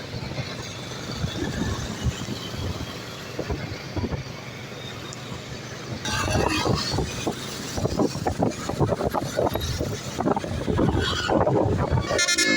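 Roadside traffic noise with a bus engine, growing louder and busier about halfway through as a vehicle comes close. Right at the end a bus's multi-tone telolet horn starts sounding.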